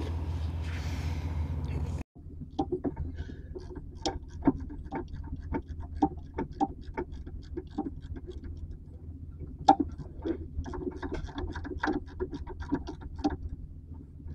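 Ratchet and metal tools clicking and tapping on a car's front brake caliper bolts as the caliper is put back together. The clicks are irregular, two or three a second with a few louder ones, over a low steady hum.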